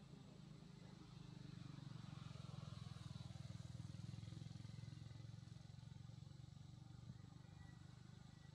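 Faint low drone of a distant engine, swelling about a couple of seconds in and easing off again in the second half.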